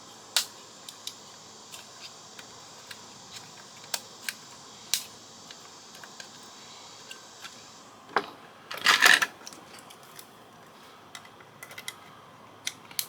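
Hand tools clicking and snapping against a circuit board as a battery is worked off it, in scattered sharp clicks with a louder burst of clicking and scraping about eight to nine seconds in; the battery is stubborn and resists coming off.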